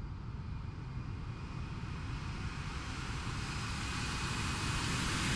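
Saab JAS 39 Gripen fighter's jet engine running as the jet taxis, a steady rushing noise with a faint high whine, growing louder throughout.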